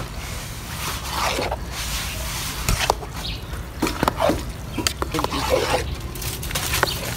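Metal spoon stirring jollof rice in a large metal pot: irregular wet scrapes and squelches as the rice is turned, with short clicks of the spoon against the pot.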